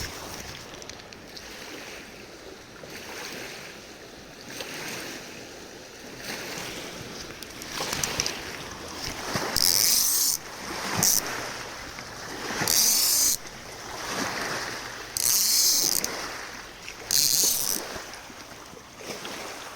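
Tarp ratchet line being hauled tight: about five short, high zipping pulls of cord through the ratchet pulley in the second half, over steady wind noise.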